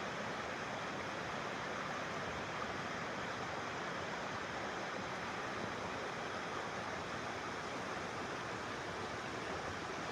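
Steady, even rushing noise that holds at one level throughout, with no distinct events.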